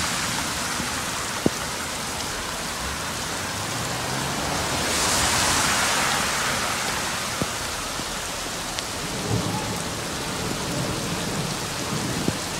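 Heavy rain pouring down steadily onto a street and cars, with a louder rush of tyres through standing water about five seconds in and a low rumble near the end.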